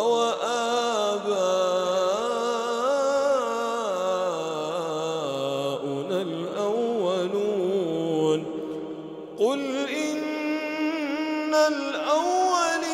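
A man's solo Quran recitation in a slow melodic chant, drawing out long notes that glide up and down in ornamented runs. About eight and a half seconds in, the voice stops briefly for a breath and then picks up again.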